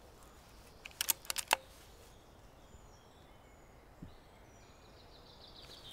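A quick run of sharp clicks from a PCP air rifle about a second in, with a dull thump at about four seconds. Faint bird chirps in the background.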